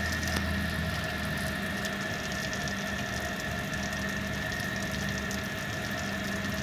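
Steady machine hum, like a motor or pump running, holding several constant tones over a faint hiss, with no change in pitch or level.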